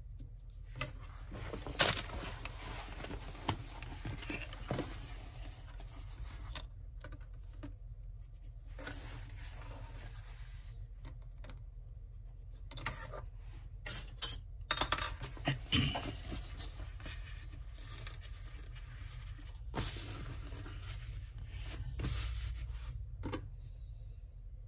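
Fabric being handled and marked with a pencil and plastic ruler on a worktable: scattered rustles, scrapes and light clicks, the sharpest about two seconds in, over a low steady hum.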